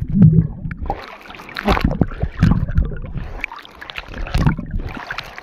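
Sea water sloshing and splashing against a phone camera held at the surface among waves, in irregular rushes with low thumps.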